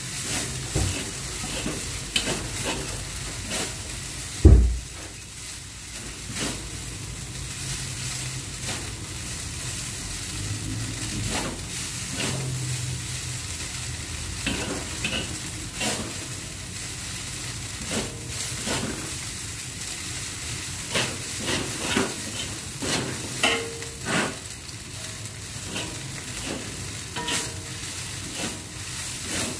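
Rice noodles sizzling in a hot wok while being stir-fried, with chopsticks clicking and scraping against the wok as the noodles are lifted and tossed. A single loud thump about four and a half seconds in.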